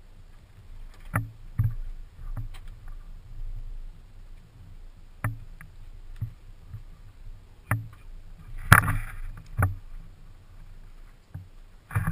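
Irregular knocks and clicks of gear and handling aboard a fishing boat, a few seconds apart over a steady low hum. The loudest knock comes near the end, with a short rattle after it.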